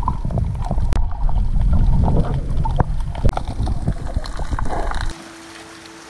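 Water sloshing and bubbling around an underwater action camera: a loud, muffled rumble with scattered clicks. About five seconds in it cuts off, giving way to a quiet hiss and soft held music notes.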